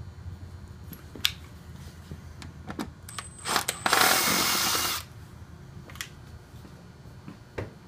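Scattered clicks and knocks of a plug being opened and its screw taken out, with a loud rushing burst lasting about a second just before the halfway point.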